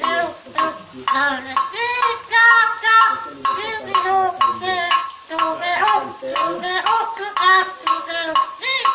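A green parrot chattering in a quick, unbroken string of speech-like syllables that rise and fall in pitch.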